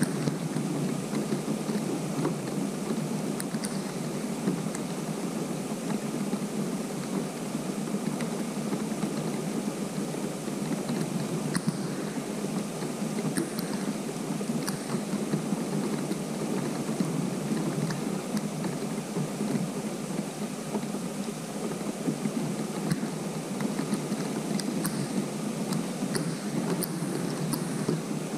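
Steady rain falling on open pond water: an even hiss with scattered light ticks of single drops.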